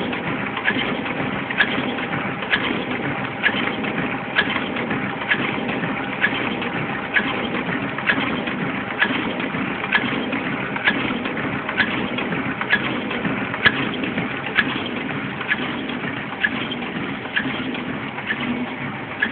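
A-95T tissue machine running steadily: a continuous hum with a sharp click repeating evenly a little more than once a second as it cycles.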